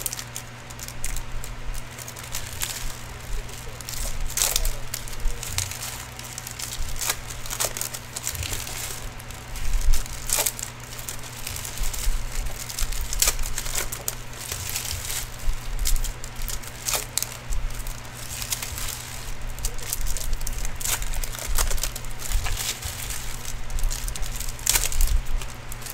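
Foil wrappers of Upper Deck hockey card packs crinkling and tearing as the packs are ripped open, with irregular crackles and card-handling rustles, over a steady low electrical hum.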